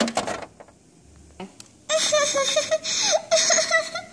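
A girl's voice doing wordless pretend crying for a doll: wavering, high-pitched sobs that break off about half a second in and start again near the two-second mark.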